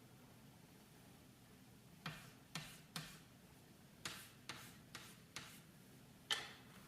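A scattering of light taps or clicks, about eight at uneven intervals starting about two seconds in, against an otherwise very quiet background.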